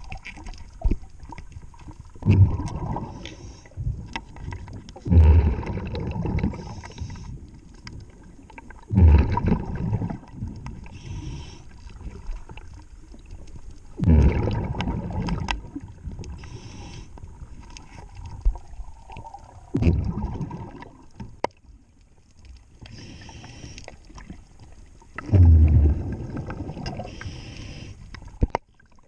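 Scuba diver breathing underwater through a regulator: exhaled bubbles rush out in loud bursts six times, about every four to six seconds, with faint clicks and a low hiss between breaths.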